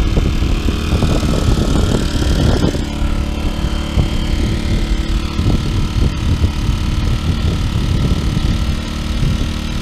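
Dirty Hand Tools 800-watt inverter generator running steadily at an even, not too loud engine note.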